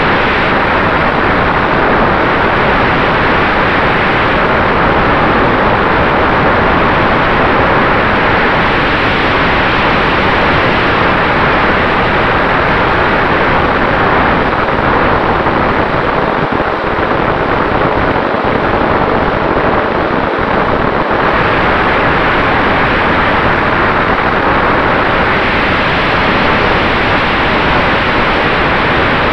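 Steady rush of airflow and propeller noise picked up by a camera mounted on a radio-controlled Cessna 188 model plane in flight, with a faint steady tone underneath.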